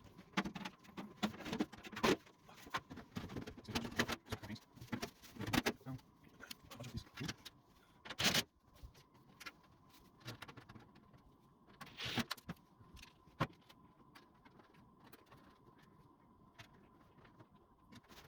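Metal washer back panel and its screws being handled and fitted: irregular clicks, taps and light metallic rattles, with two louder clatters about eight and twelve seconds in.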